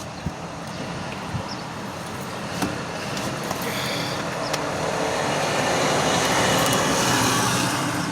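A car driving, heard from inside the cabin: steady engine and tyre noise that grows louder over several seconds and eases off near the end.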